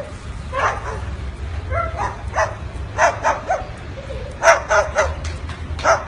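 White cockatoo giving short, yapping, dog-like barks, about a dozen in quick irregular clusters: a parrot imitating a dog.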